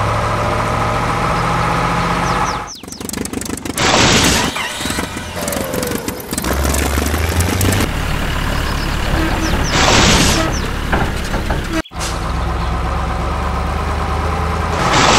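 Engine sound effect laid over toy trucks: a steady, low truck-engine drone that shifts pitch a few times, broken by loud whooshing bursts about four seconds in, about ten seconds in and near the end.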